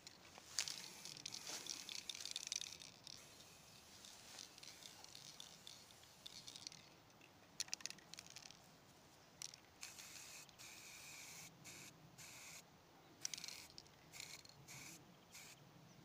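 Aerosol spray-paint can hissing in several short and longer bursts, with a few sharp clicks between them.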